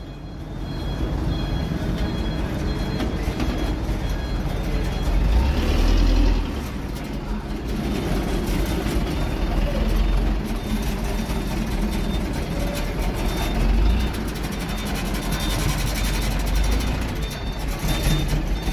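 Heavy vehicle engines running with a steady low rumble. A faint repeating reversing beeper sounds, clearest in the later part.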